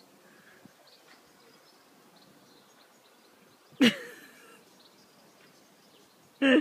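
Quiet garden background with faint bird chirps. A sudden short, loud cry with a falling pitch breaks in about four seconds in, and another short loud cry comes right at the end.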